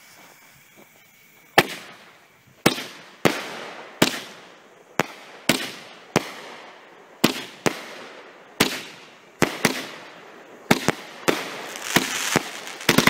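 A 12-shot strobe-tail firework cake firing: after about a second and a half of quiet, a run of sharp launch bangs and bursts follows at uneven intervals of roughly half a second to a second. A hissing crackle builds near the end.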